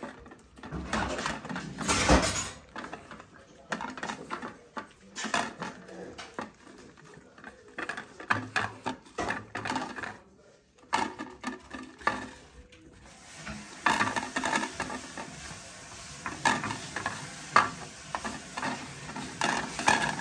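Two dogs eating from plates on a stone floor: irregular clatter and scraping as they lick and nose the plates, pushing them across the floor. The clatter pauses briefly about halfway through and grows busier after.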